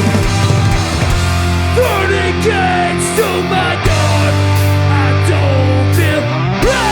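Hardcore band playing live: loud distorted electric guitars and bass holding heavy chords, with sliding, bending guitar notes over them.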